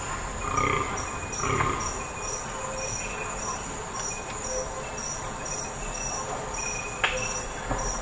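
Forest ambience with birdsong: two fuller calls in the first two seconds, then a steady series of short high chirps repeating about two to three times a second. A single sharp snap comes about seven seconds in.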